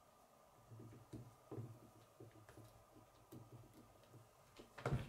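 Quiet clicks and taps of plastic K'nex pieces being handled and fitted together, with one louder click near the end.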